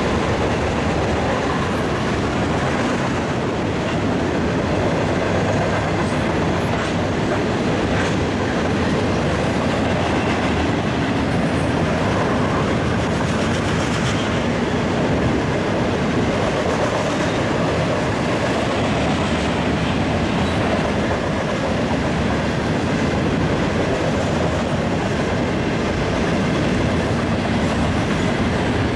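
Freight train cars rolling past close by, with a steady heavy rumble and the clatter of steel wheels on the rails.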